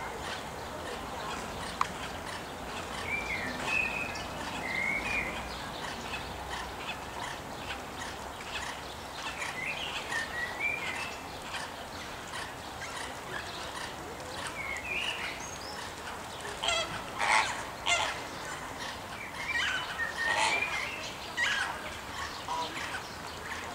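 A flock of flamingos giving goose-like honking calls in scattered bouts, loudest about two-thirds of the way through.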